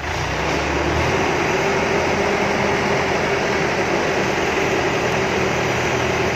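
Forklift running as its hydraulic mast lifts the forks with a man standing on them: a steady mechanical drone with a constant whine over it.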